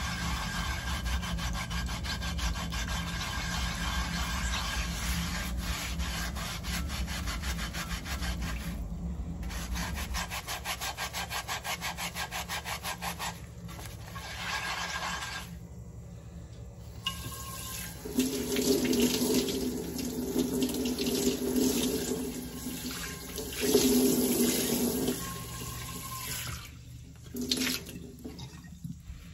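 A sponge scrubs the inside of an unglazed clay pan with salt, in rapid back-and-forth rubbing strokes, scouring off stuck-on food residue. Partway through, the kitchen tap runs water over the pan, rinsing it.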